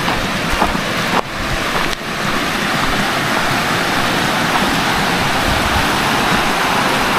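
River water rushing over the rock of the Rere Rockslide: a steady rush, briefly broken twice in the first two seconds.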